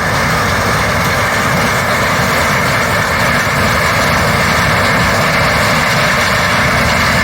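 Heavy diesel engine of a large farm machine running steadily, a low rumble under a dense, even mechanical rush.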